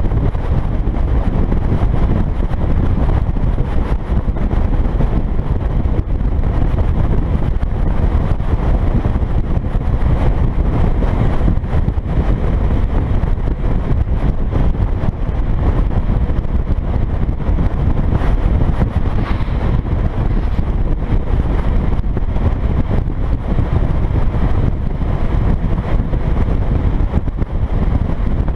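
Wind buffeting the microphone of a camera mounted outside on a moving dump truck, over the low, steady rumble of the truck driving at road speed.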